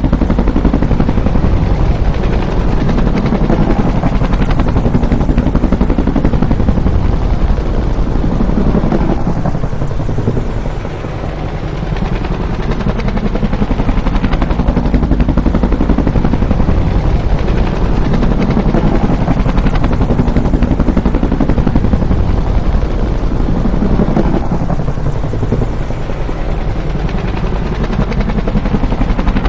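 Bell UH-1 Huey helicopter's two-bladed main rotor and turbine running loud and continuous, with a rapid beating blade thump. The sound dips briefly twice, about 11 seconds in and again near 25 seconds.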